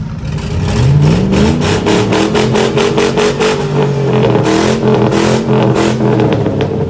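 A car engine revs up about a second in and is held at high revs, with a rapid run of sharp cracks or pops over it.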